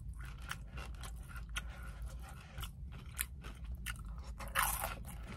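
Close-up mukbang-style chewing of breaded fried chicken dipped in mashed potatoes and gravy, with scattered crunches and wet smacking clicks and one brief louder crunching noise about four and a half seconds in.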